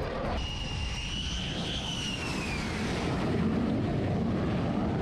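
Jet aircraft flying overhead: a high engine whine that rises slightly and then falls away over the first two and a half seconds, over a steady rumble of jet engine noise.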